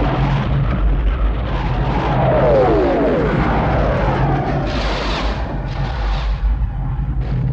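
Cartoon sound effects: a continuous rumbling din, with a falling whistle about two to three seconds in and two short hissing bursts around five and six seconds.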